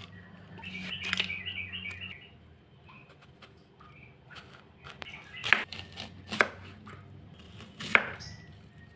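Kitchen handling sounds: scattered light clicks, then three sharp knocks in the second half, the loudest about five and a half, six and a half and eight seconds in. There is a short run of chirpy high blips about a second in.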